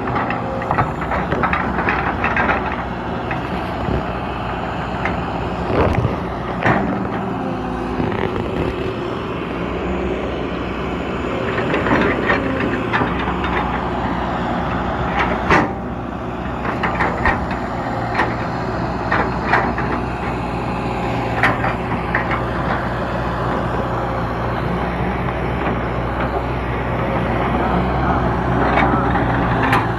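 An old heavy machine's engine running steadily, with sharp clanks and knocks scattered through it.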